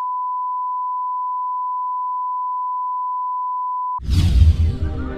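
Steady 1 kHz line-up test tone, the reference tone that goes with colour bars, cutting off about four seconds in. A sudden swooshing hit takes its place, opening into music.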